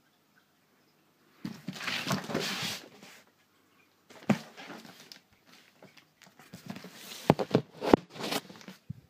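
Cardboard shipping boxes being handled, rubbing and scraping, with a few sharp knocks in the second half.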